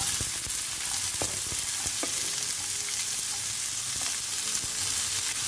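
Sliced shallots tipped into hot oil in a pan, sizzling with a steady hiss, with a few faint ticks.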